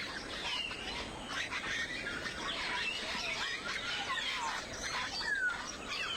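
Many birds chirping and calling at once, a busy chorus of short rising and falling calls.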